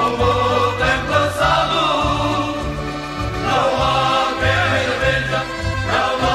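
A group of voices singing cante alentejano, the Portuguese folk part-song, with long wavering held notes over a low line.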